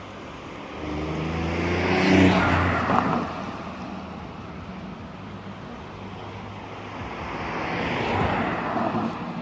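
Two road vehicles driving past one after the other. The first passes about two seconds in, with its engine hum heard over the tyre noise. The second passes near the end, mostly as tyre noise.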